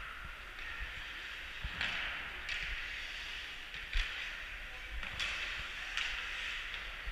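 Ice hockey rink during play: skates scraping on the ice as a steady hiss, with several sharp clacks of sticks and puck, the loudest about four seconds in.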